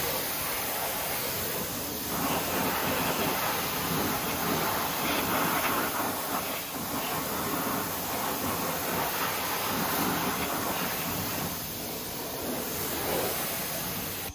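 High-pressure water jet from a Chemical Guys Torq Snubby pressure washer gun spraying onto a car tire and wheel: a steady hiss that swells and dips as the jet moves across the rubber and rim.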